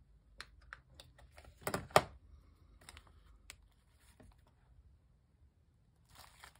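Hands handling small craft supplies on a desk: a run of light clicks and taps, loudest in a cluster about two seconds in, and a short paper rustle near the end.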